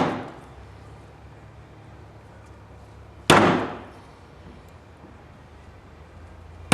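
Hammer blows about three seconds apart, each a sharp strike with a short ringing tail, driving a star washer onto the post of a fuel pump's filter.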